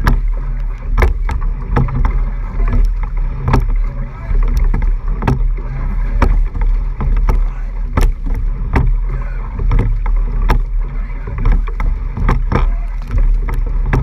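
A rowing eight under full racing pressure: a steady rush of water along the hull and wind on the lens, with sharp knocks about once a second from the oars working in the oarlocks at each catch and release of the stroke.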